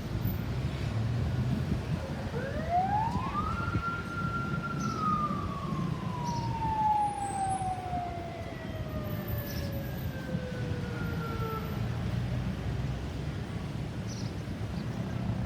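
Ambulance siren sounding one wail: the pitch rises quickly a couple of seconds in, holds briefly, then falls slowly and dies away. A steady low rumble of road traffic runs underneath.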